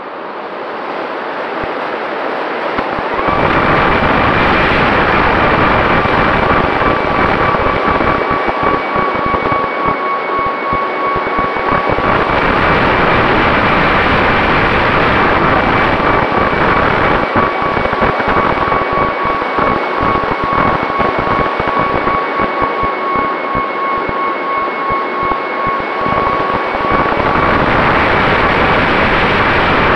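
FPV quadcopter's motors and propellers running in flight, heard through the onboard camera's microphone: a steady high whine over a wash of prop and wind noise. It swells as the throttle comes up about three seconds in, then holds with small rises and dips.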